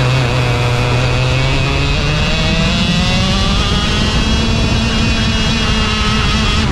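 Racing kart engine heard close up from on board, its pitch climbing over the first four seconds or so as the kart accelerates, then holding steady at high revs.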